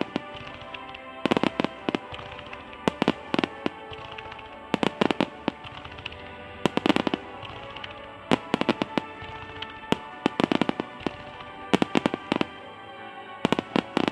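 Aerial fireworks shells bursting in rapid clusters of sharp bangs and crackles, a fresh group every one to two seconds, over music playing steadily underneath.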